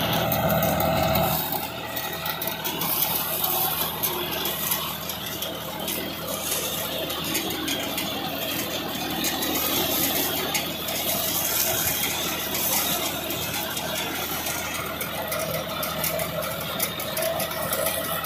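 John Deere 5405 diesel tractor running under load while its front-mounted cutter chops standing cotton plants, a steady engine with a mechanical rattle.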